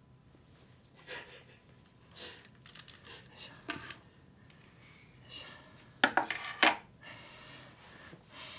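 Rustling and light clatter as headphones and a pair of sunglasses are taken off and set down on a hard tabletop, with two sharp knocks about six seconds in.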